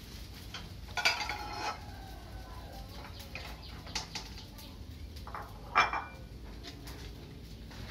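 Ceramic plates clinking against each other and the wire dish rack as they are taken out, with two louder ringing clatters, about a second in and again near the end, and lighter clicks between.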